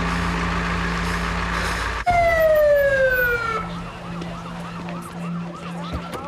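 Sustained dramatic music for about two seconds, then an abrupt cut to a police car siren. The siren slides down in one long falling tone, then switches to a fast yelp of about three rises a second.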